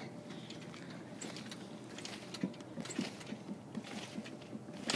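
Faint, irregular thumps and creaks of a trampoline as a person bounces on it.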